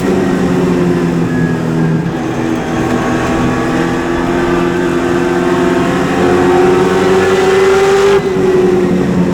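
Super late model race car's V8 engine running at race speed; its pitch climbs slowly for several seconds, then drops suddenly about eight seconds in.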